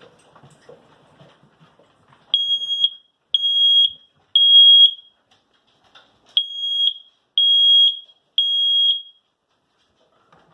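Kidde smoke alarm sounding under its push-and-hold test: two groups of three loud, high-pitched beeps with a short pause between the groups, starting about two seconds in. The alarm is working.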